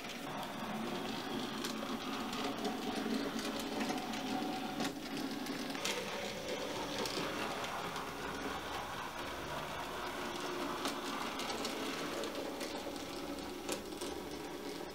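H0e-scale model C50 narrow-gauge diesel locomotive running with its train of wagons: the small electric motor whirs steadily, with light clicks from the wheels on the track.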